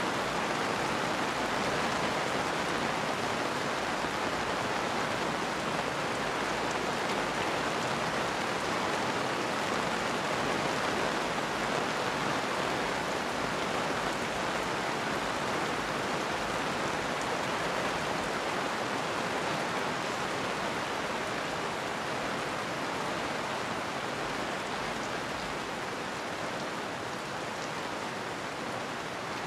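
Steady rain falling as an even hiss, easing off a little near the end.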